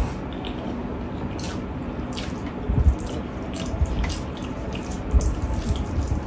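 Close-up wet chewing and lip-smacking of a mouthful of rice and curry eaten by hand. A few louder soft thumps come partway through as fingers work rice on a steel plate.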